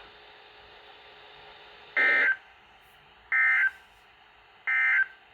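Emergency Alert System end-of-message signal: three short bursts of SAME digital data tones, a warbling modem-like chirp repeated a little over a second apart, with faint radio hiss between them. The bursts signal the end of the alert broadcast.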